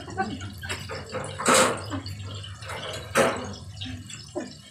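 Chicken deep-frying in a large pan of hot oil: steady bubbling and crackling, with two louder hissing spurts, about a second and a half in and about three seconds in.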